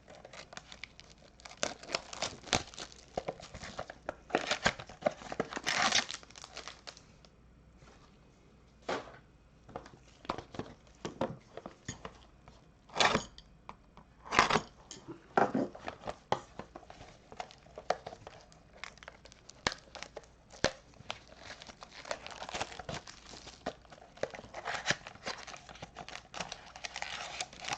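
Wrapper of a trading-card pack being torn open and crinkled, in short irregular crackling bursts.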